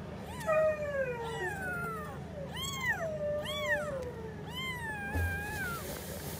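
Five-day-old newborn kittens mewing, several thin, high cries overlapping, each falling or arching in pitch.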